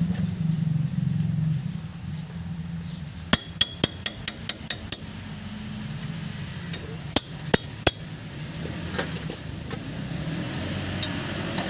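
Metal being struck during brake work: a quick run of about seven sharp taps, about four a second, then three more a few seconds later and a few faint ones after.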